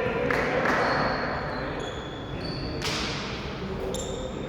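Volleyball game play in a gym: a few sharp hits of the ball, short high squeaks of shoes on the court floor, and voices in the hall.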